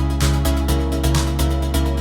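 Electronic instrumental music: a sustained deep bass and held synth chords under a steady beat of about four hits a second.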